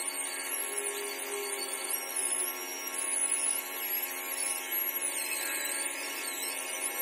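A handheld stone polisher running steadily, its pad worked along the edge of a granite sink cutout. A high motor whine wavers up and down in pitch as the pad is pressed and moved.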